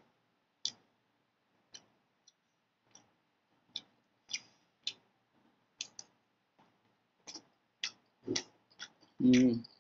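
Chewing noodles with the mouth closed: irregular wet mouth clicks and lip smacks, about one or two a second, growing more frequent towards the end.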